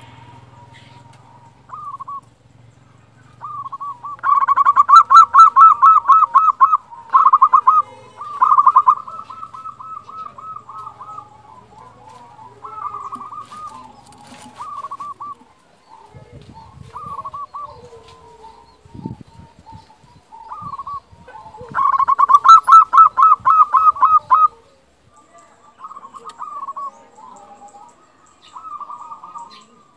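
Zebra dove (perkutut) singing its cooing song: rapid runs of short staccato coo notes. The loudest runs come about four to ten seconds in and again about twenty-two to twenty-four seconds in, with softer coos between.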